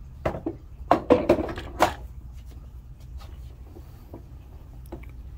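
Handling clatter of a mobility scooter's plastic tiller console and parts: a quick run of knocks and clicks in the first two seconds, with a few faint ticks after.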